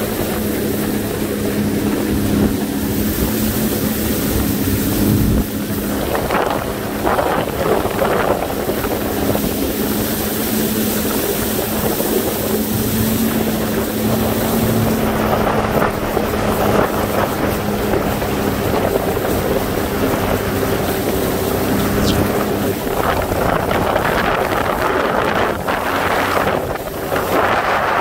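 Jet ski engine running with a steady drone, with wind buffeting the microphone and water rushing past the hull. The hum fades and the rush of wind and water grows louder in the last few seconds.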